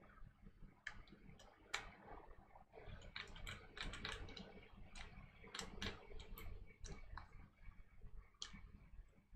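Irregular light clicks and taps of Glock 23 pistol parts being handled and fitted during reassembly, busiest in the middle stretch.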